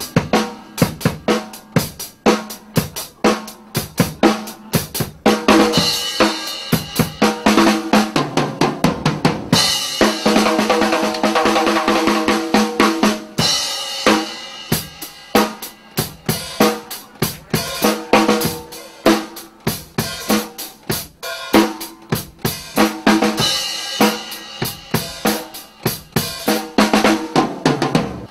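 Drum kit played live with a band: rapid snare and bass drum hits with cymbals and hi-hat, with pitched tones from the band ringing underneath.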